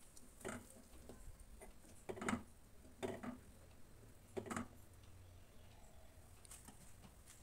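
Silicone spatula stirring milk in a stainless steel pot, with a few soft irregular knocks and scrapes against the pot's side and bottom.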